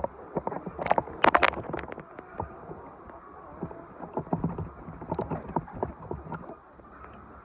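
Irregular tapping and knocking among chickens, with a few short clucks; a cluster of sharp knocks is loudest about a second in.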